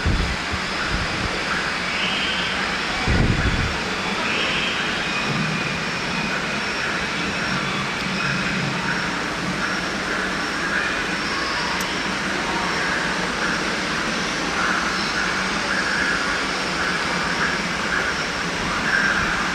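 Steady, loud rushing noise, with low thumps about a second before and three seconds in.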